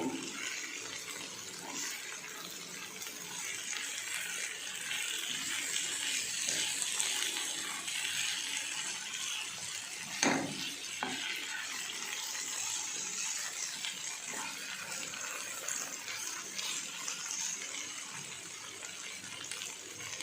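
Steady hiss of running water or a gas flame, with a single sharp knock about ten seconds in.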